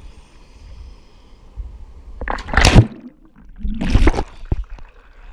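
A person jumping feet-first off a boulder into a river: a loud splash about two seconds in, followed about a second later by a second, shorter rush of splashing water. Before it, the river flows with a low, steady rush.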